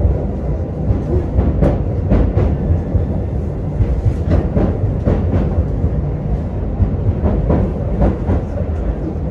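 Ride noise heard inside a moving commuter electric train car: a steady low rumble from the running gear, with frequent irregular wheel clicks and knocks over the track.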